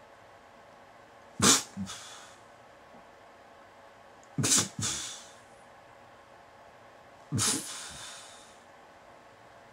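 A person's orgasmic vocal outbursts: three short, sharp, breathy cries about three seconds apart.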